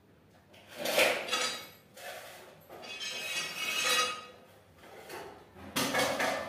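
Clatter of household objects being handled, with some metallic ringing, in three bouts: about a second in, around three to four seconds in, and near the end.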